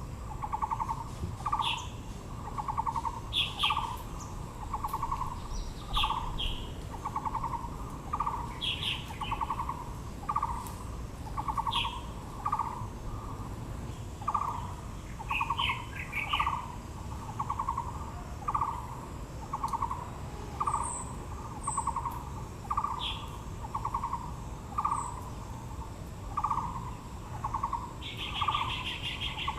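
Birds calling: one bird repeats a short, low, rattling note steadily, about three notes every two seconds. Other birds add scattered brief higher chirps, with a quick run of chirps near the end.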